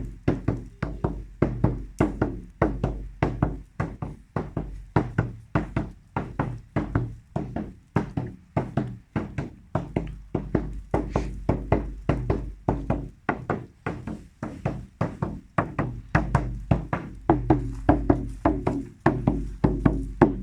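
A hand drum beaten in a steady rhythm, two to three strikes a second, each strike with a low, resonant boom.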